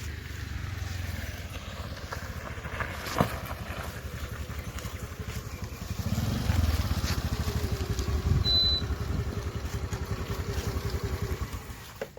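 Diesel engine of a working machine running with a fast, even low pulse, getting louder about six seconds in as it takes on load, with a held whine over it for a few seconds. A single sharp knock about three seconds in.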